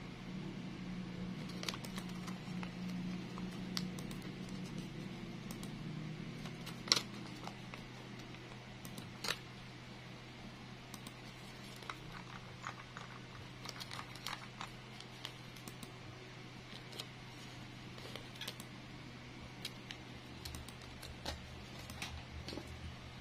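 Light crinkles and small scattered clicks of a thin plastic-bag sheet being handled and worked by hand, with two sharper clicks about seven and nine seconds in, over a faint steady hum.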